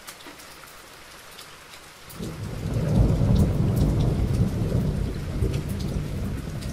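Rain falling, with scattered ticks of drops; about two seconds in a low rumble of thunder swells up and carries on.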